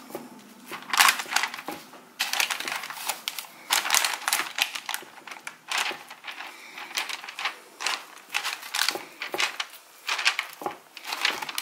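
Parchment paper crinkling and rustling in irregular bursts of crackle as hands press and shape cauliflower dough on it over a sheet tray.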